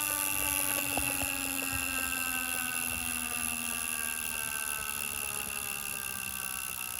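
Wahoo Kickr smart trainer's flywheel running with a whine that slowly falls in pitch as it slows, with a few faint clicks, on a unit that has a gurgling fault.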